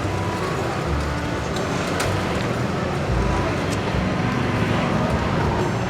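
Steady low rumble of vehicle traffic, with faint voices in the background.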